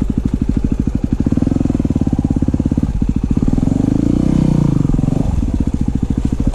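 250 cc dual-sport motorcycle engine running under throttle, its firing pulses steady, with the revs swelling twice, once about a second and a half in and again around four seconds in.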